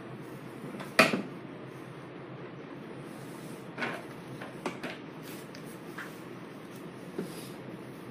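Knocks and clatter from a hand-operated soap cutting machine as soap bars are pushed through it: one loud bang about a second in, then several lighter knocks.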